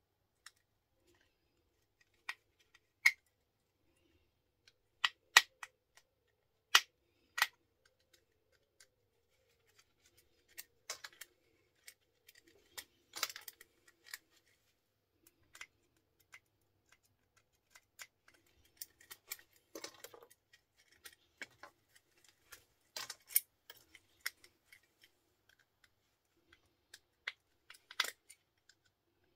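Irregular sharp clicks, snaps and small metallic ticks from a screwdriver and hand tools prying apart plastic electrical switches and fittings, with a handful of louder snaps among many faint ticks.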